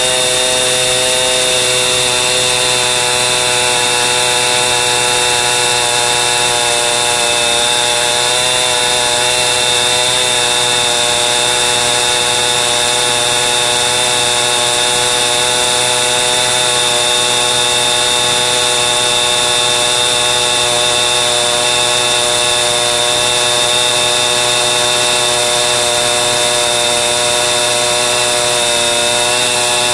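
Chainsaw running at a steady high speed under load, ripping a log lengthwise along the grain.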